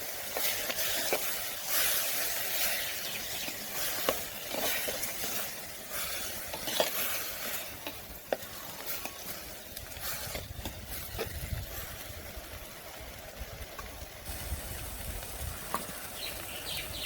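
Vegetables and coconut paste being stirred in a clay pot over the heat, sizzling, with scattered clicks of the utensil against the pot.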